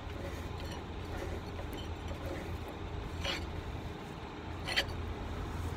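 Steady low hum with two brief metallic clicks, about three seconds in and again near five seconds, from a socket and long bar being worked on a truck's wheel hub nut.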